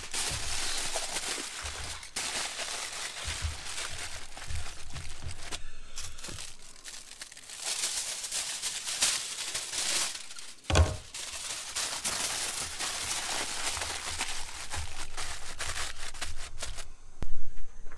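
Aluminium foil crinkling and crumpling as it is wrapped and pressed by hand, with a sheet pulled off the roll partway through. There is a single sharp thump about eleven seconds in.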